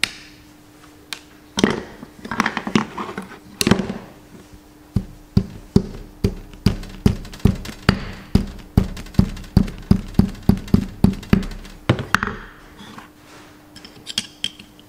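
A small ball-pein hammer tapping a split pin's legs down over a castellated wheel-bearing nut on a tractor front hub: about seventeen light, even metal taps, roughly three a second. Before them comes a couple of seconds of irregular clatter of tools being handled.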